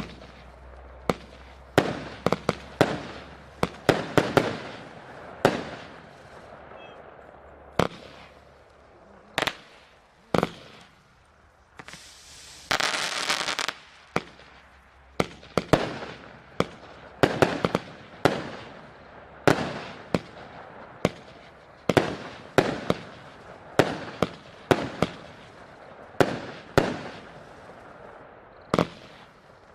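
A 49-shot firework cake firing shot after shot: sharp bangs that each die away, irregularly spaced at more than one a second. Around the middle, a steady hissing rush lasts about a second and a half.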